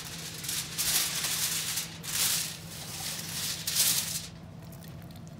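Sheet of aluminium foil crinkling as it is handled and smoothed flat on a table, in three or four crackly bursts that stop after about four seconds.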